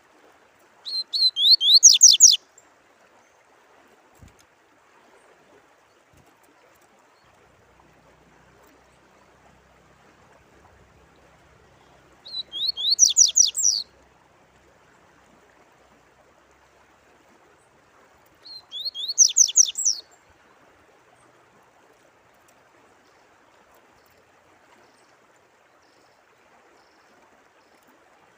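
A songbird sings three times, each phrase about a second and a half of fast, rapidly repeated downward-sweeping notes. A faint steady sound of running water lies beneath the song.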